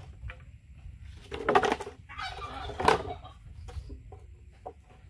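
Chickens clucking in two short, loud bursts, about a second and a half in and again near three seconds, with a few fainter clucks between.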